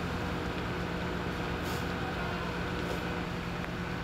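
Fire engine's engine running, a steady drone with a constant low hum.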